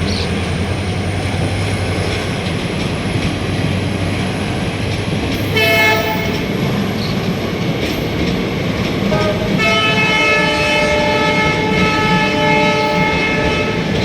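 Indian Railways diesel locomotive departing, its engine humming steadily over rail rumble. It gives a short horn blast about five and a half seconds in, then a long horn blast from about nine and a half seconds in.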